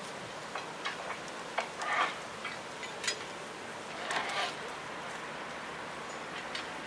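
Irregular sharp clicks and knocks, about a dozen spread over several seconds and strongest about two and four seconds in, over a steady background hiss.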